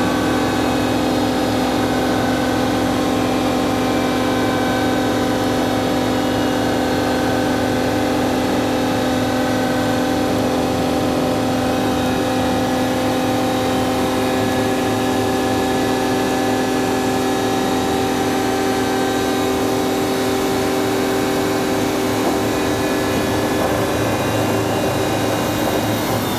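A machine running steadily: a constant motor hum with an even whine of several steady tones, one of which shifts slightly about two-thirds of the way through.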